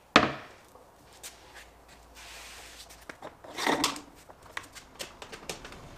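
Wooden chopping board set down on a wooden router table with one sharp knock, followed by scraping and light knocks as it is shifted into place on the tabletop.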